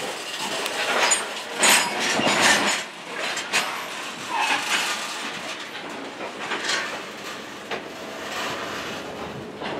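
A freight train of covered hopper cars rolling slowly past: a steady rumble of steel wheels on the rails, broken by irregular clanks and rattles from the cars, most of them in the first three seconds.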